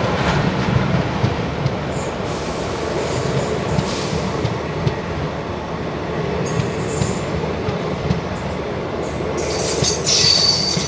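Passenger train, the 14738 Tilak Bridge–Bhiwani Express, running past on the adjacent track close by: a steady rumble and clatter of its coach wheels on the rails. Brief high squeals come in about two-thirds of the way through and again near the end.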